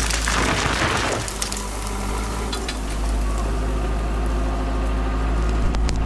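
Chainsaw engine running steadily, with a short rush of cracking noise about half a second in.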